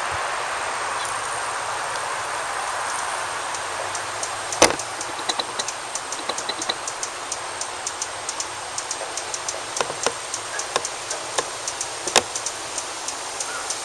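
Rufous hummingbird giving a run of short, high chip calls, roughly three a second, over a steady hiss of road traffic that fades early on. Two louder clicks stand out among the chips.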